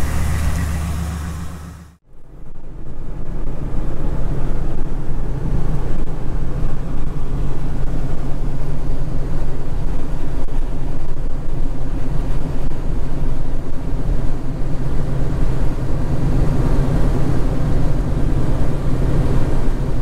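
2003 Ford F-250 Super Duty's 6.8L V-10 heard from inside the cab while cruising on the highway: a steady engine drone with tyre and road noise. The owner reckons the new spark plugs and ignition coil have cured its misfire. In the first two seconds a steady sound outside the truck fades away before the driving begins.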